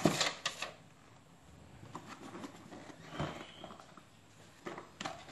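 Cardboard box and plastic packaging being handled: a sharp rustle and knock at the start, faint scattered rustling, another brief rustle about three seconds in and a click near the end.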